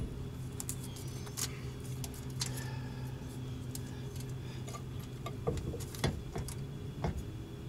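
Scattered light metallic clicks and rattles of a steel tape measure being pulled out and held against a trailer hitch ball mount to measure its height, over a steady low hum.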